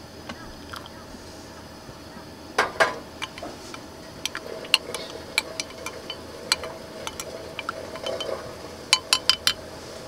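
Spoon stirring citrus tea in a glass mug, clinking against the glass in scattered strokes from about two and a half seconds in, ending with four quick clinks near the end.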